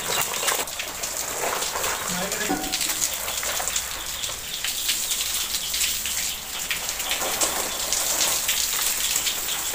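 Water running from a hose and splashing, a steady rain-like spattering hiss full of fine crackles.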